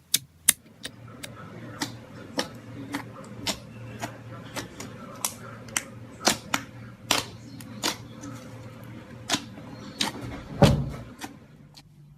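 Slime being squeezed and worked by hand, making sharp irregular pops and clicks, roughly two a second, over a soft squishing, with one heavier thud near the end.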